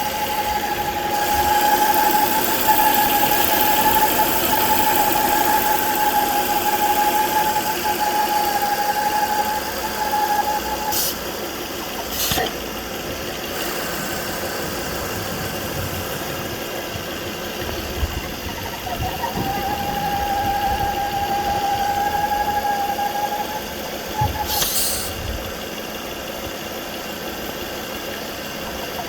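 2009 Volvo S40 2.4i's B5244S7 inline five-cylinder engine idling with a steady high-pitched howl. The howl drops out at about 11 seconds and comes back at about 19 seconds, and there are a few sharp clicks. The howl goes with about 4 inHg of vacuum in the crankcase, which the owner suspects comes from a bad PCV oil trap.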